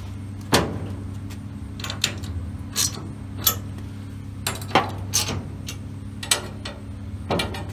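A dozen or so sharp metallic clinks and taps at irregular intervals as a hand tool works against a steel door frame being fitted to the car body, over a steady low hum.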